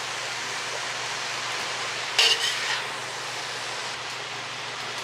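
A utensil stirring and tossing vegetables in a cooking pan over a steady hiss, with one louder clatter of the utensil against the pan about two seconds in.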